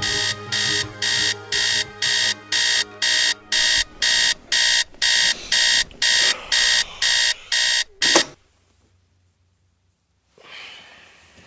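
Electronic alarm beeping steadily, about two to three high beeps a second, over music that fades out about four seconds in. The beeping cuts off abruptly about eight seconds in, leaving near silence until a faint rustle near the end.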